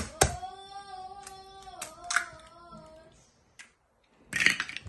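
A high voice singing one drawn-out, slightly wavering note for about three seconds, opening with two sharp clicks of an egg knocked against a metal pot. Near the end comes a short crackle as another eggshell is broken open.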